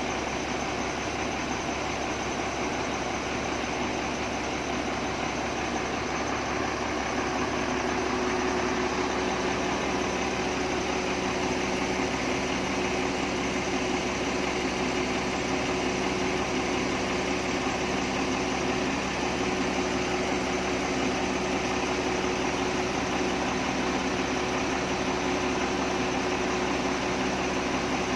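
Diesel engine of a Doosan wheel loader idling steadily while its raised bucket holds an engine on a chain: a constant, unchanging hum.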